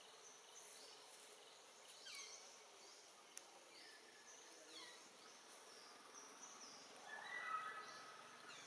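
Faint outdoor forest ambience with short, high chirping calls that glide downward in pitch and repeat every second or so, and a brief louder call about seven seconds in.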